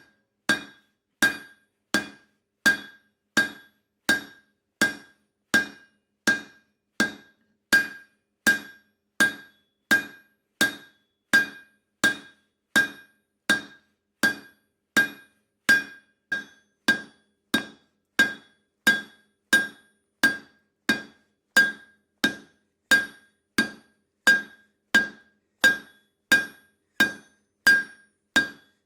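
Blacksmith's hammer striking steel bar on an anvil in a steady rhythm, about three blows every two seconds. Each blow rings with the same high metallic tone.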